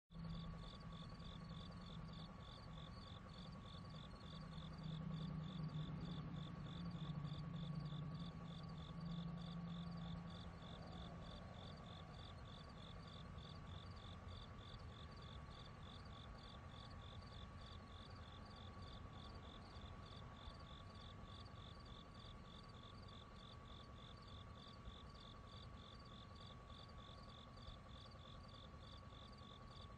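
Outdoor night ambience of insects chirping in an even, rapid pulse, over a steady whirring tone. A low hum swells between about 5 and 11 seconds in, then fades.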